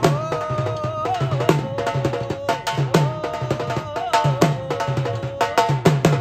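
Rajasthani folk music for a kathputli puppet dance: a hand drum beating a quick, steady rhythm under a held melody line that wavers and slides in pitch.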